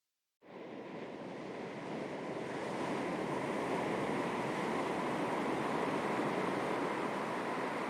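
Sea waves lapping against the shore in a light breeze, a steady wash of water noise. It starts abruptly out of silence less than half a second in and swells over the first couple of seconds.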